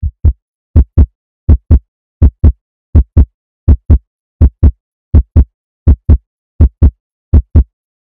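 Heartbeat sound effect: a steady lub-dub, pairs of short low thumps repeating a little faster than once a second, with dead silence between beats.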